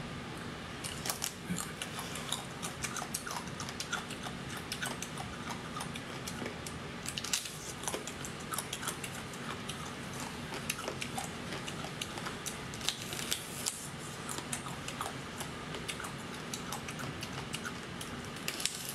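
Wet, sticky clicks and squelches from a plastic-gloved hand squeezing a large gelatinous piece of seafood, with a bite into it near the end. A steady low hum runs underneath.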